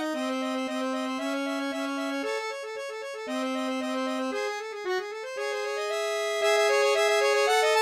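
Instrumental background music: a melody of held, stepping notes over sustained low notes, getting louder about two-thirds of the way through.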